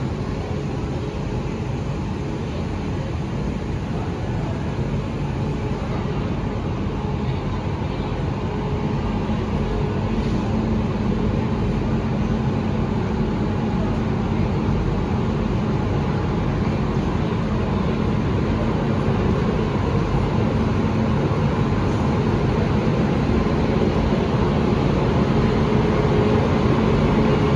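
WAP-7 electric locomotive running slowly up to the end of the train to couple on for a locomotive reversal: a steady mechanical rumble and hiss that grows gradually louder as it approaches, with a low drone coming in about nine seconds in and strengthening.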